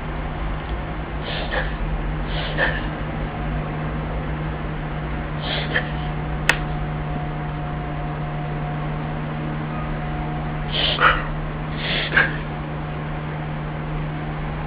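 Small dog reverse sneezing: five short, noisy in-breaths, a pair about a second apart near the start, one in the middle and a pair near the end, over a steady low hum. A single sharp click comes about six and a half seconds in.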